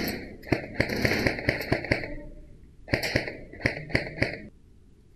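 Airsoft rifle firing, an irregular run of sharp cracks a few per second in two quick strings. The firing stops about four and a half seconds in.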